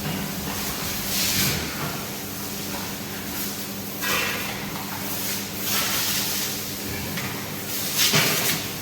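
Pressure-washer spray hissing in four or five surges over the steady hum of its pump motor.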